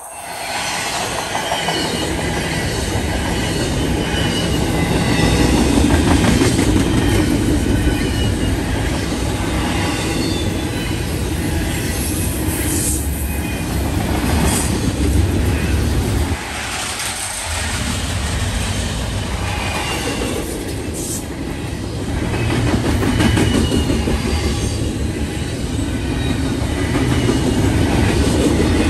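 A train passing close by on the main line: steel wheels clattering in a quick rhythm over the rail joints, with a heavy rolling rumble. The noise comes up sharply right at the start and eases briefly a little past halfway.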